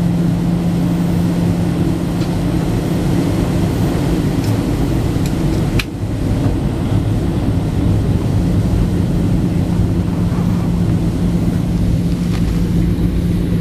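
Steady in-flight cabin drone of a Boeing 737-700, its CFM56-7B turbofans and the airflow heard from a window seat over the wing, with a low hum held at one pitch. A single sharp click about six seconds in.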